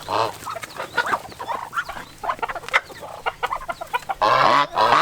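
Mixed farmyard poultry clucking and calling, many short calls overlapping, with a louder harsh call starting near the end.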